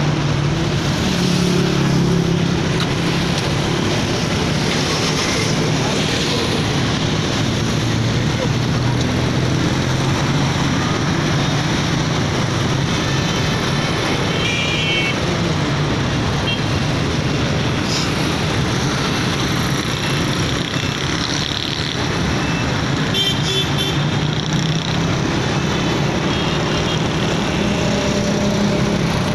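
Steady road traffic from a busy city road: engines and tyres of passing cars and motorbikes, with a few short horn toots about halfway through and again later.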